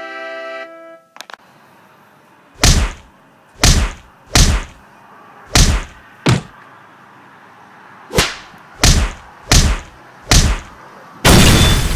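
A few keyboard notes end about a second in. Then come nine heavy thuds at uneven spacing, and a loud noisy blast starts near the end.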